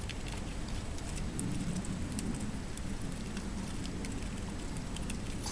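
Paper being cut out around a drawn circle: faint, irregular little snips and crinkles over a steady low background hum.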